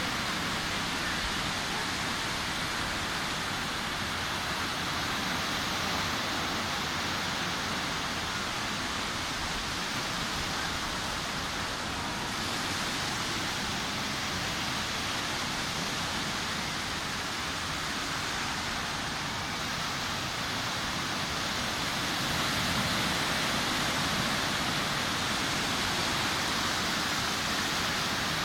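Sea waves washing onto a beach: a continuous rush of surf, growing a little louder a bit over two-thirds of the way through.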